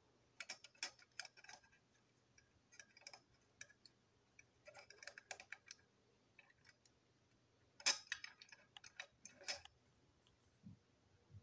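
Small sharp clicks and taps of plastic and metal parts as a toy train truck is put back together, its metal wheelsets fitted into the plastic side frames. The clicks come in short clusters, the loudest pair near the end.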